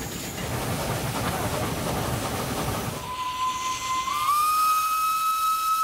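Steam whistle of a Rigi Railway vertical-boiler steam locomotive, coming in about halfway through as one held note that steps up slightly in pitch a second later. Before it there is a few seconds of rough rushing noise.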